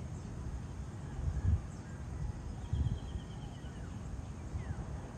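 Outdoor ambience of gusty wind buffeting the microphone, with a faint bird's rapid run of short, evenly repeated notes about halfway through and a couple of faint falling whistled calls soon after.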